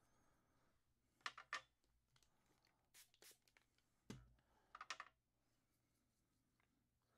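Faint handling sounds of craft supplies on a desk: a few light clicks and scrapes about a second in, and again between about three and five seconds in, over near silence.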